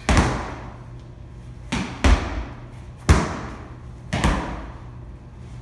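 Medicine balls slammed onto a rubber gym floor by several people doing oblique slams: a series of sharp thuds, roughly one a second, each with a short echo.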